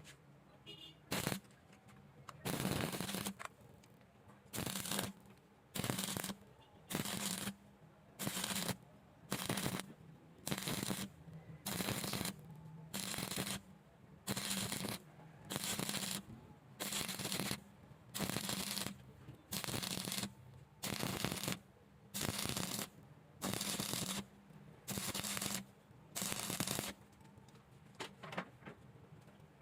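Electric arc welding done in short stitch or tack bursts: about two dozen crackling, hissing arcs, each roughly half a second long, struck about once a second.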